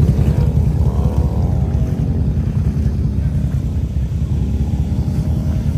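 Off-road vehicle engines from quad ATVs and a side-by-side running, a loud, steady low rumble.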